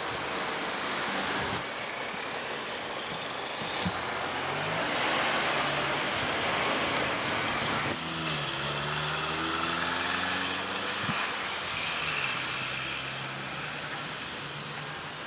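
Motor vehicles passing on a street over a steady hiss of road and outdoor noise. A whine rises in pitch a few seconds in, and low engine tones swell and fade in the second half.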